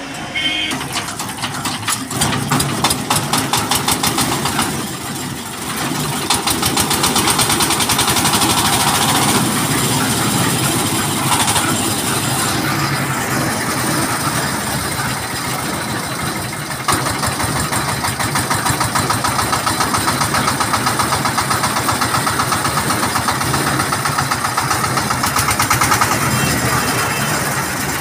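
Kirloskar 15 HP diesel engine running with a rapid, even chug. It grows louder about six seconds in and then holds steady.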